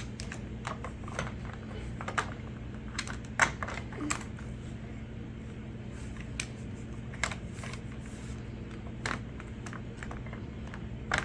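Irregular light clicks and taps from a model train locomotive being handled and set onto the track in its styrofoam packing, over a steady low hum.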